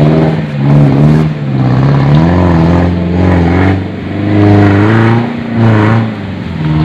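Off-road 4x4's engine revving hard under load as it climbs out of a muddy stream crossing, the pitch rising and falling again and again.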